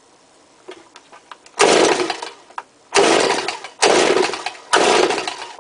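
Recoil starter of a Stihl BG86 two-stroke leaf blower pulled four times on choke. The first pull comes about a second and a half in and the other three follow about a second apart, each a loud burst that fades quickly. The cold engine turns over without catching, which the owner puts down to too little priming.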